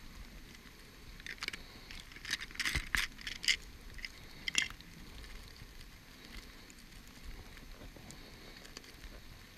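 Paper being handled and crumpled by hand: a run of short crinkling rustles over roughly the first five seconds, then only a steady hiss of rain.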